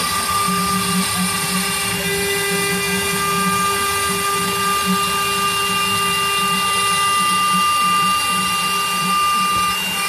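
Homemade CNC router carving a relief into wood: the spindle and engraving bit run with a steady high whine, over a fluttering low hum from the machine.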